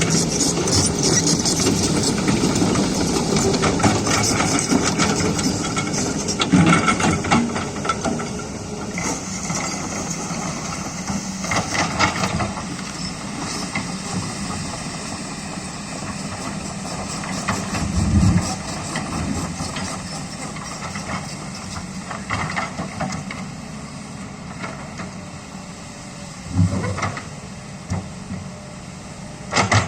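Kobelco hydraulic excavator running and working, its diesel engine steady under load with a high hiss from the hydraulics. It is louder for the first several seconds, and a few short clunks and surges come in the second half.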